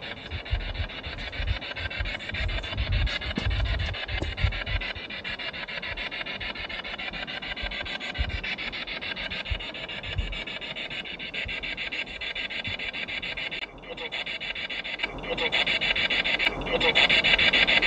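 Spirit box sweeping through radio stations: a continuous choppy, rasping static, with low thumps in the first few seconds. It grows louder near the end, in a stretch that the ghost hunter captions as the words "get out" (出ていけ).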